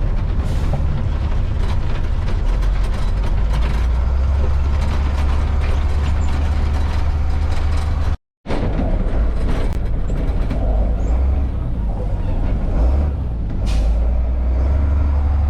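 Heavy farm machinery running steadily under load at corn silage harvest, a deep engine drone with a couple of short hisses; the sound cuts out completely for a moment about eight seconds in.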